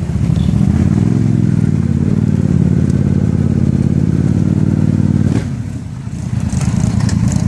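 Polaris Sportsman 850 Touring ATV's twin-cylinder engine running under light throttle, then the throttle closes about five seconds in and the engine drops to a steady idle.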